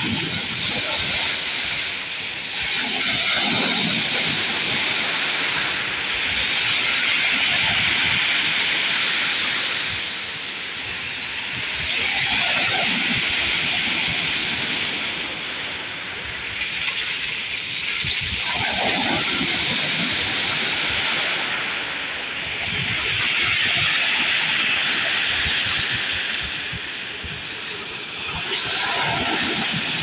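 Sea waves breaking on a pebble beach and washing up over the stones as a steady hissing rush. It swells and eases about every five seconds, with a fuller crash at several of the peaks.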